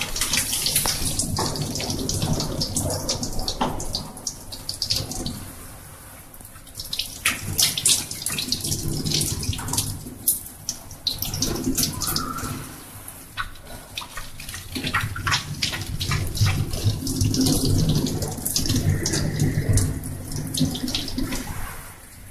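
Water running from a gooseneck tap into a stainless-steel scrub sink, splashing unevenly as hands and forearms are worked under the stream, with a couple of quieter stretches.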